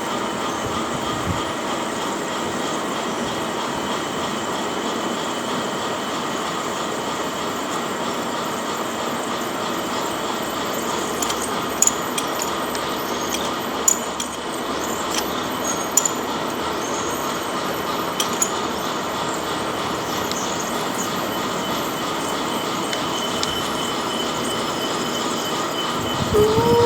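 A machine drilling into metal runs steadily, with a constant whir and several steady high tones. A few sharp clicks come about halfway through, and a louder short sound with a wavering tone comes at the very end.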